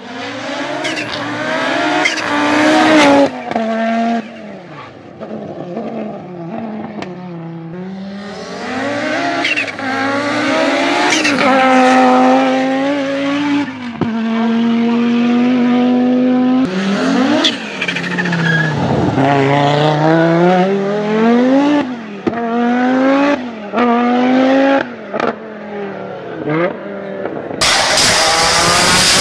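Audi Sport Quattro rally car's turbocharged five-cylinder engine accelerating hard, revs climbing and dropping at each gear change over several passes. Near the end it switches to the car running flat out on a dyno, a loud steady wide noise.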